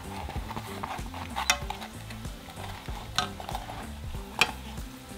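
Wheat chicharrón (duro de harina) sizzling in hot oil in a frying pan, with a few sharp clicks from the metal tongs and spatula against the pan and the puffing sheet, three of them standing out.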